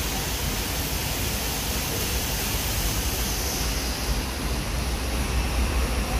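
Steady rushing noise with a deep rumble underneath, even and unbroken.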